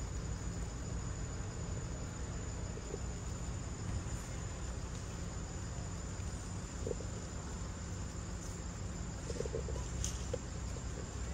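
Steady high-pitched insect drone, with a few faint short chirps in the second half.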